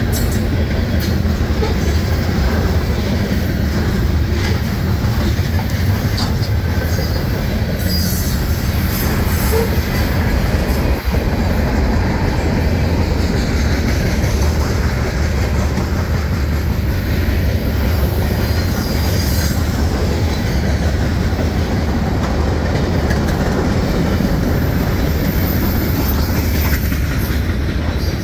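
CSX freight train rolling past: a steady, loud rumble of the cars on the rails, with light wheel clatter and a brief high wheel squeal near the end.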